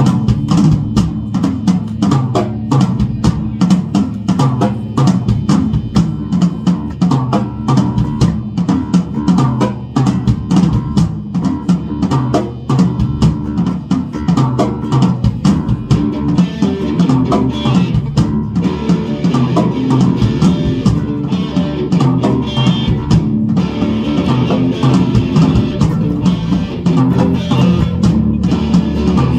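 Live rock band playing an instrumental passage: drum kit with steady kick and snare hits, electric guitar and electric bass.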